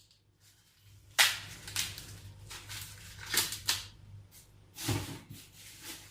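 Husks being pulled off fresh maize cobs: about six sharp tearing rips, the loudest about a second in.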